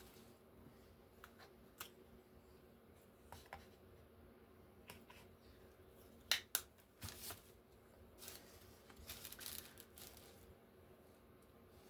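Quiet handling of craft materials on a work table: scattered light taps and clicks, two sharper clicks a little past the middle, and a short rustle of paper about three-quarters of the way through.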